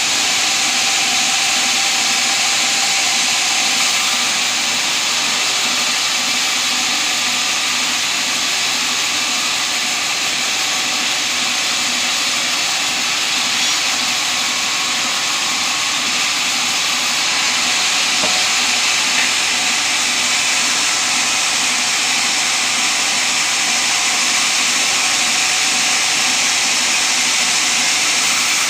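Sawmill saw running steadily while sawing teak timber into 8x8 cm beams: a loud, even rushing noise with a low hum beneath it, unbroken throughout.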